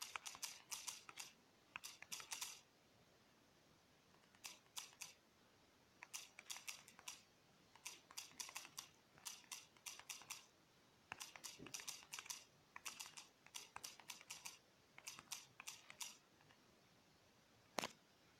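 Faint typing: bursts of quick keyboard clicks with short pauses between, and one sharper single click near the end.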